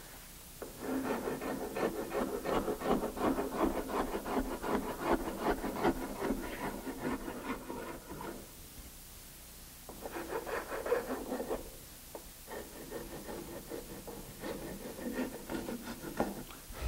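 Hand rasp filing the edge of a pattern piece in quick, even back-and-forth strokes, working the curve down to a drawn line. The strokes come in three spells: a long run from about a second in, then after a short pause two shorter runs near the end.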